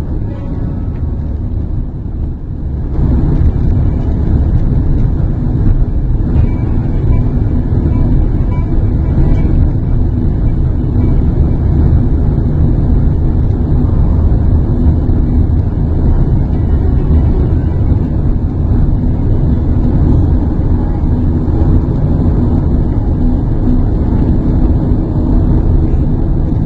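Steady low road rumble of a car driving along, tyre and wind noise heard from inside the cabin. It comes in abruptly and louder about three seconds in, after a quieter stretch.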